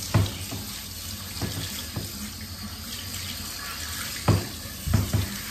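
Handheld shower sprayer running, water hissing onto a dog's wet coat and into a grooming tub. Several dull knocks cut through the spray, the loudest about a fifth of a second in and twice near the end.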